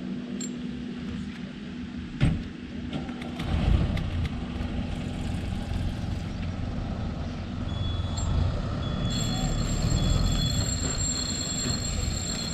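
Spinning reel's drag slipping with a steady high whine from about nine seconds in, as a hooked fish starts to run against the bent rod, over a low rumble of rod handling and wind on the microphone.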